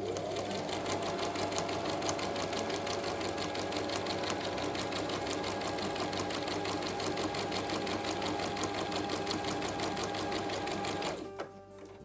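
Electric domestic sewing machine running at a steady, fast stitch rate as fabric is fed through under the presser foot. It stops abruptly near the end.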